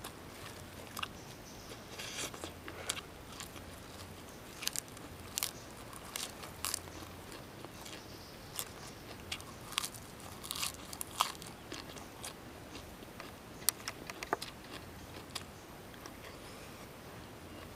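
A person chewing raw lettuce leaves: irregular crisp crunches and wet chewing, a few every second.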